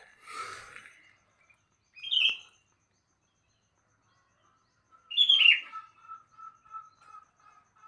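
Sooty-headed bulbul (kutilang) calling: a short sharp chirp, then a louder call that slides down in pitch about five seconds in, followed by a quick run of soft, even repeated notes. A brief rustling noise comes at the very start.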